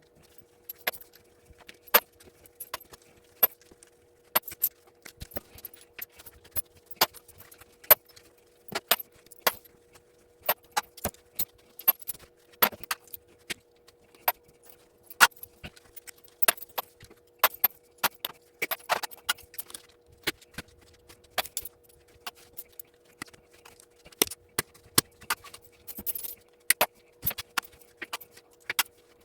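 Small brass pieces from old plugs clinking and clattering as they are handled and dropped together, a run of irregular sharp metallic clicks; a faint steady hum runs underneath.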